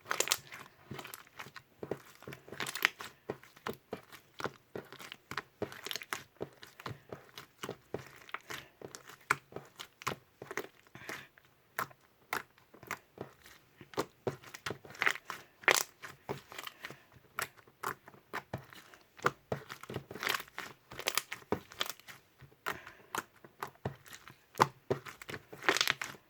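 Green mint slime being squeezed, stretched and pressed by hand, giving dense, irregular crunchy crackling and sharp popping clicks.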